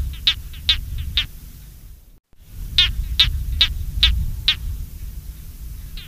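A run of short, high, rasping animal chirps, about two to three a second, over a low rumble. The sound cuts out briefly about two seconds in, then the chirps resume.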